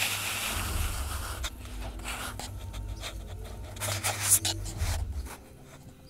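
Handling noise on a phone microphone: rubbing, a low rumble and several bumps while the phone is moved, loudest about four seconds in, then settling down shortly before the end.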